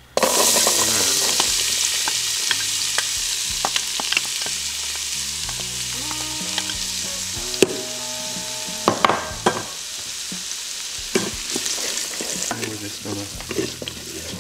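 Diced onion and carrot dropped into hot fat in an Instant Pot's inner pot on sauté, setting off a loud sizzle that starts suddenly and slowly eases off. Sharp clicks of stirring against the pot come through it.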